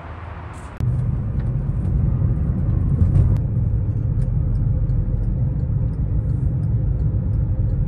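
Steady low rumble of a car driving, heard from inside the moving car. It starts suddenly about a second in, after a quieter steady hiss.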